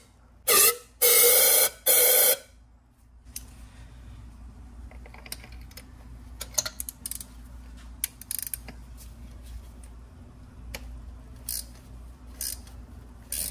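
Three short, loud blasts of a compressed-gas duster can blowing debris out of a spark plug well on a B58 engine. After them come scattered light metallic clicks of a socket and extension being worked on the plug.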